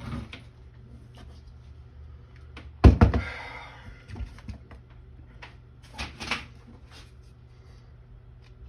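A loud thump about three seconds in with a brief rattling tail, followed by a few lighter knocks and clicks, over a low steady hum.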